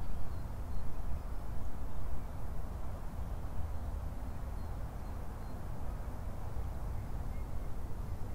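Outdoor ambience: a low, uneven rumble with a few faint, high bird chirps.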